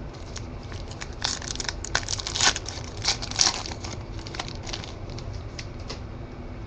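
Foil wrapper of a Panini Select football card pack being torn open and crinkled, a run of sharp crackling rustles from about one to nearly four seconds in, followed by a few lighter clicks as the cards are handled.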